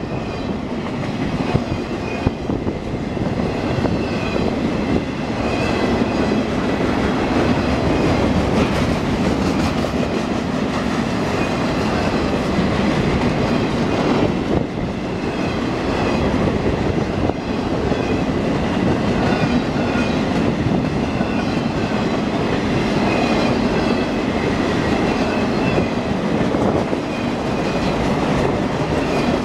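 Freight flatcars carrying wind turbine blades rolling past at close range: a steady rumble of steel wheels on rail, with clacking over the rail joints and faint high wheel squeals now and then.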